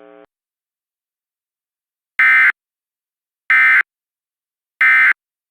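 Emergency Alert System end-of-message data bursts: three short, identical, shrill digital screeches just over a second apart. This is the SAME 'NNNN' code sent three times to close an alert.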